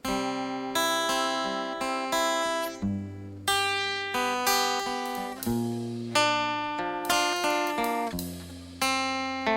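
Instrumental song intro: acoustic guitar strummed chord by chord, about one strum a second, each chord ringing and fading before the next.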